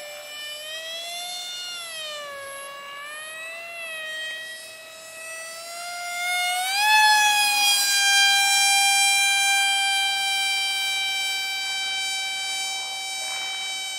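Cardboard F-22 RC airplane's motor and propeller whining overhead in flight. The pitch rises and falls as the throttle changes, then climbs and gets louder about seven seconds in and holds steady.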